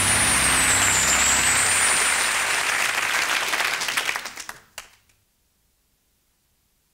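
Studio audience applauding, the dense clapping fading away about four to five seconds in and giving way to silence.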